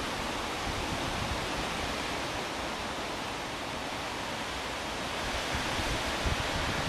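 Steady wind noise on the microphone: an even hiss with a light rumble underneath.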